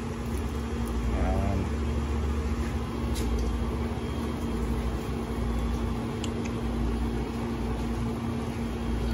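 Steady low rumble with a constant hum from running kitchen machinery, and a few faint ticks, while a pan of bopis steams on the stove.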